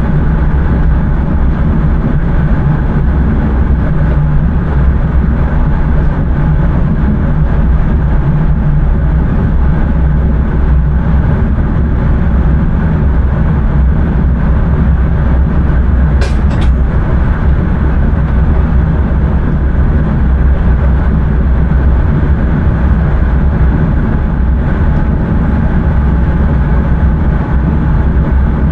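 Intercity train running along the line, heard from inside the driver's cab: a steady low rumble with a faint hum. A brief sharp click sounds about halfway through.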